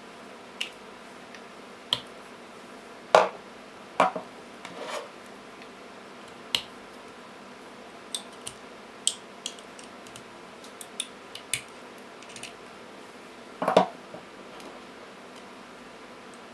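Hand cleaning of salvaged 18650 lithium-ion cells on a bench: scattered sharp clicks and short scrapes of a tool and the metal cells being worked and handled. There are a few louder knocks about three and four seconds in and again near the end.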